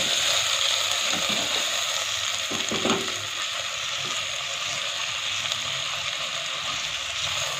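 Chicken pieces sizzling as they fry in hot oil in a metal pot, stirred with a plastic spatula that scrapes and knocks against the pot a few times, loudest about three seconds in.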